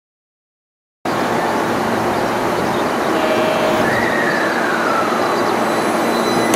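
After about a second of silence, a JR West 223 series electric train pulls out of the station, with steady running noise. Near the middle, a whine glides down in pitch.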